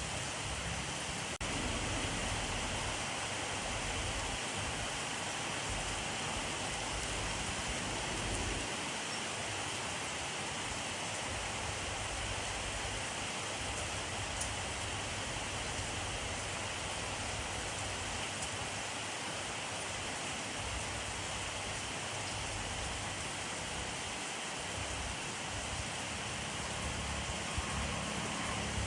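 Steady rainfall, an even hiss of rain that holds the same level throughout.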